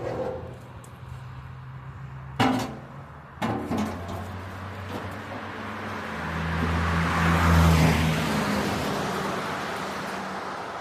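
A vehicle engine running steadily, swelling louder in the middle and easing off again, with two sharp knocks about two and three and a half seconds in.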